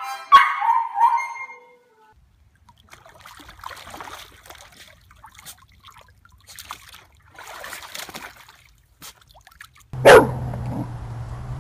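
A puppy howling along with a harmonica. Then a dog splashing and wading in a shallow paddling pool, with short bursts of sloshing water. Near the end comes a sudden sharp bark over a steady low hum.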